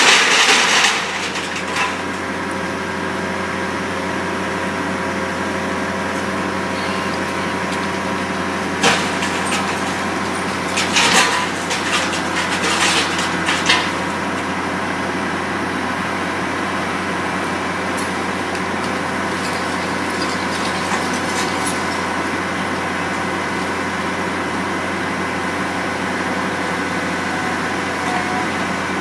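Demolition machinery's engine running steadily under load, with bursts of crashing and crunching as building material breaks and falls: at the start, about nine seconds in, and again from about eleven to fourteen seconds.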